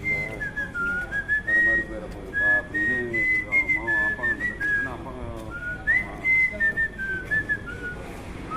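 A man whistling a melody by mouth: clear, held notes stepping up and down like a song tune, so lifelike it could pass for a recording. People talk softly underneath.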